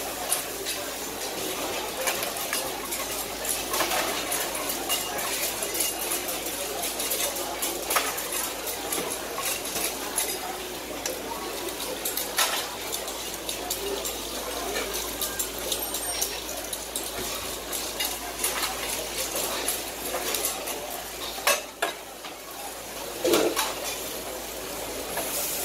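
Seafood on banana leaves sizzling on a hot flat-top griddle, with repeated clinks and scrapes of a metal spatula and tongs against the griddle and metal pans, and a couple of louder knocks near the end.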